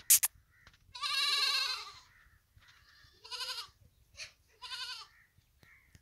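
Goats bleating: one long wavering bleat about a second in, then two shorter bleats. A sharp knock comes at the very start and is the loudest sound.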